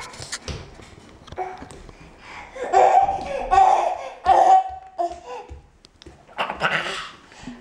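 Happy laughter in bursts, high-pitched, loudest from about two and a half to five seconds in, with a short drawn-out squeal near five seconds and another burst near the end.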